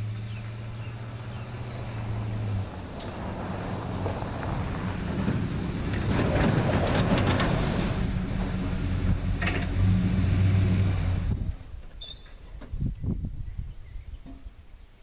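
A 1986 Chevy C20 pickup's engine running steadily, then pulling away with engine and road noise building over several seconds. About eleven seconds in the engine sound stops suddenly, leaving a quieter stretch with a few clicks.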